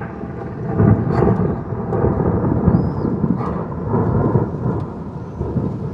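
Thunder rolling: a long, low rumble that grows about a second in and keeps going in uneven swells, rising again near the end.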